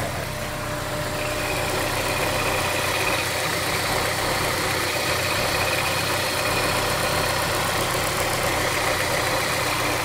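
Honda S2000's four-cylinder engine idling steadily, heard close up in the engine bay beside the spinning accessory drive belt and pulleys.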